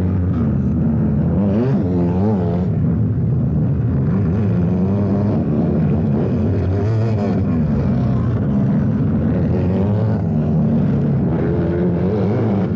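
Several four-stroke sidecar motocross engines running together in a steady drone, their pitch rising and falling as the riders work the throttles.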